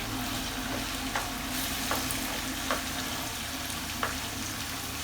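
Marinated chicken pieces frying in hot oil in a pan with a steady sizzle, while they are turned over; a few short, sharp ticks about a second apart sound over the sizzle.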